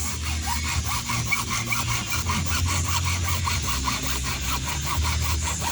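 Hand saw cutting with quick, even back-and-forth strokes, over a steady low hum.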